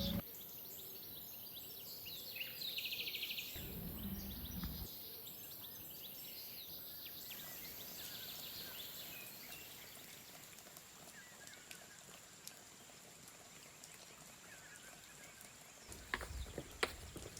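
Quiet outdoor ambience with faint bird chirps and a short fast trill a few seconds in, over a steady high thin tone. A brief low rumble comes twice, about four seconds in and near the end.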